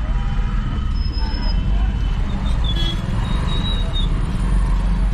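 Steady low rumble of a car's engine and road noise, heard from inside the cabin while driving in slow city traffic. Faint brief high tones from the surrounding traffic come and go.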